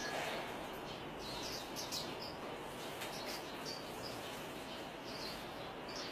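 Japanese white-eyes giving short, high chirps, a cluster of them about one and a half to two seconds in and a couple more near the end, over a steady hiss.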